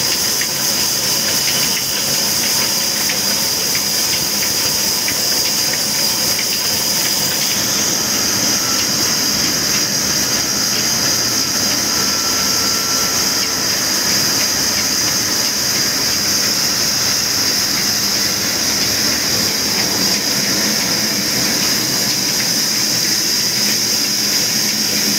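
A wood-cutting band saw and the old diesel engine that drives it, running steadily with a constant high hiss.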